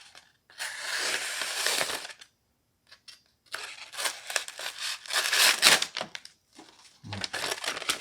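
A sharp knife blade slicing through sheets of printer paper. A hissing cut lasts about a second and a half, then after a short pause come further slicing and rustling of paper.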